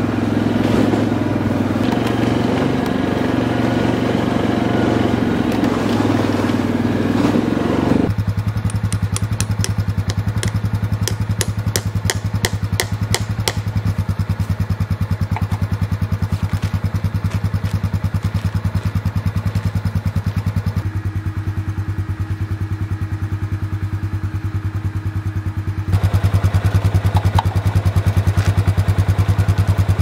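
ATV engine running: under way for the first eight seconds or so, then idling steadily with an even pulse. A run of sharp clicks sounds over the idle for a few seconds after it settles, and the idle gets louder near the end.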